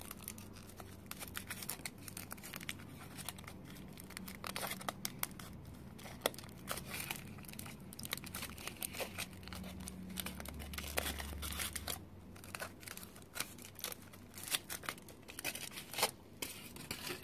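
Thin foil wrapper being peeled and crinkled off a chocolate surprise egg: a steady run of small, irregular crackles and rustles.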